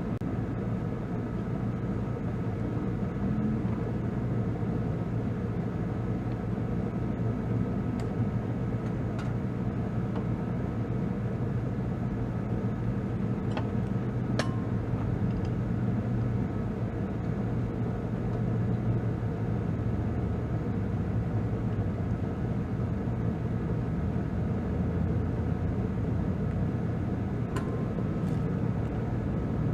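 Kubota B2650 tractor's diesel engine idling steadily, with a few sharp clicks about 8, 14 and 28 seconds in.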